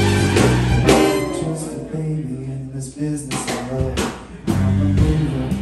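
A man singing a 1950s-style rock and roll song into a microphone over amplified backing music with bass and a beat.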